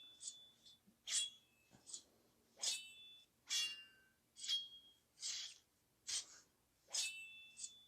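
A downloaded sound effect playing back: a short, high-pitched sound repeated evenly, about once every 0.8 seconds.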